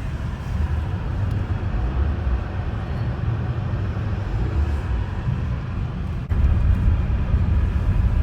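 Car driving through snow: a steady low rumble of engine and road noise that gets louder about six seconds in.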